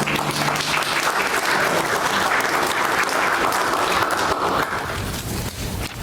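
Congregation applauding, a steady patter of many hands clapping, thinning a little near the end.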